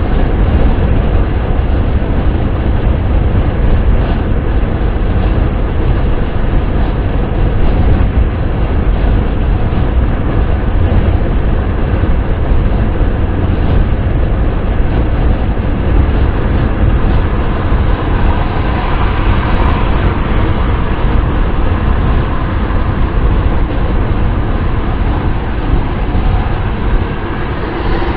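Steady wind and road noise of a car being driven, a continuous low rumble with an even hiss above it.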